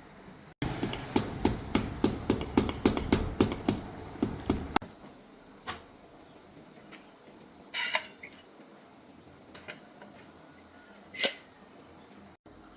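A rapid run of sharp knocks, about four a second, lasting about four seconds, then a few isolated clicks and a short scrape.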